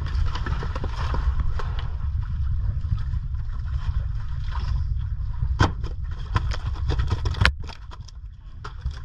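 Steady low rumble aboard a wooden outrigger fishing boat, with scattered knocks and two sharp thumps, the louder one about seven and a half seconds in, as a large fish is thrown down onto the catch on deck.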